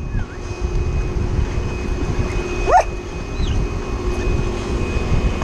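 A dog gives one short, rising yip about halfway through, over a steady low rumble of wind and the boat's motor.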